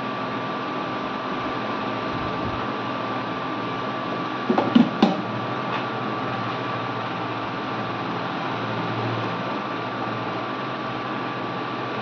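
Hot air rework gun blowing steadily, with a faint hum and whine in it. About four and a half seconds in comes a quick cluster of sharp knocks, with one more click a moment later.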